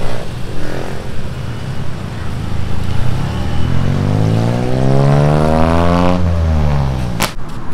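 Road traffic passing close by, with one vehicle's engine passing right alongside: its pitch climbs for a few seconds and then drops as it goes past. A single sharp click comes near the end.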